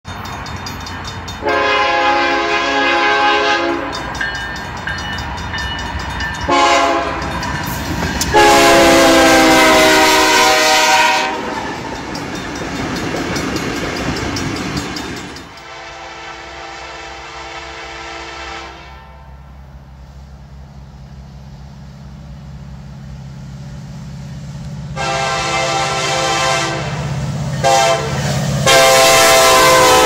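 Diesel locomotive multi-chime air horns sounding in blasts: a long one, a short one and a long one, with the rumble of the passing train between them. After a cut another long blast gives way to a steady low diesel engine drone, and near the end the horn sounds again long, short, long.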